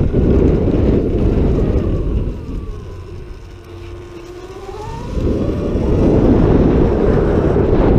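Wind buffeting the microphone while riding a Sur-Ron X electric dirt bike over grass. The wind drops away for a couple of seconds around the middle, and a faint whine from the bike's electric motor rises in pitch before the wind comes back.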